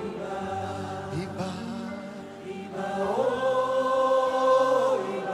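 Slow worship music with voices chanting in long held notes. A louder note slides up about three seconds in and is held for nearly two seconds.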